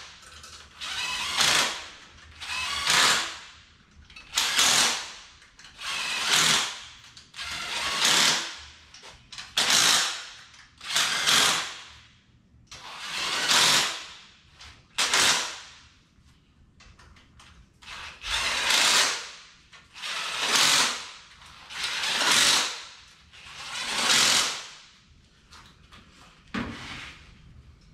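Cordless drill running fasteners down on a V8 engine in about a dozen short runs of about a second each, one every couple of seconds.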